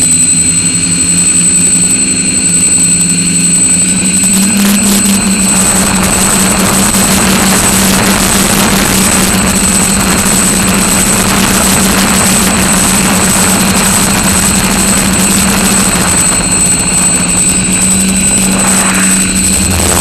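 Quadcopter's electric motors and propellers buzzing steadily, picked up by a camera mounted on the craft. The buzz steps up slightly in pitch about four seconds in, and a rushing wind noise on the microphone grows with it.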